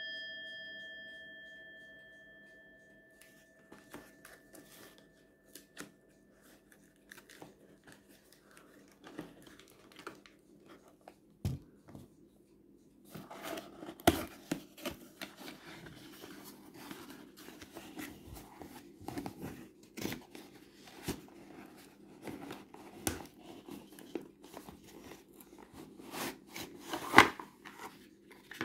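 Speaker packaging being unpacked: paper and plastic crinkling and tearing, with scattered clicks and knocks. It gets busier from about halfway in, with one louder knock near the end. A bell-like ding from just before fades out over the first few seconds.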